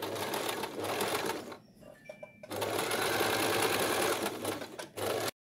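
Domestic sewing machine top-stitching a side seam on stretch lace. It runs for about a second and a half, stops briefly, then runs again for about two and a half seconds, with a short final burst near the end.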